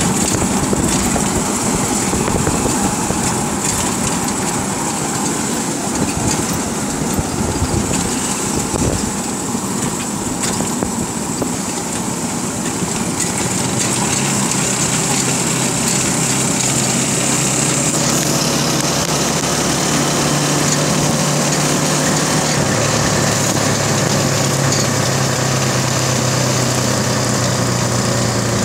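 Motorcycle engines running at a steady cruise with road noise. The engine hum steadies about halfway through and steps up slightly a little later.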